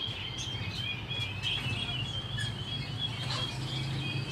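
Many small birds chirping continuously in a dense, overlapping chatter of short high notes, over a steady low hum.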